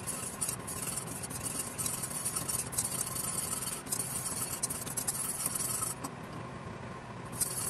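Wire whisk stirring dry flour in a stainless steel pot: a fast, scratchy swishing that stops about six seconds in and starts again briefly near the end.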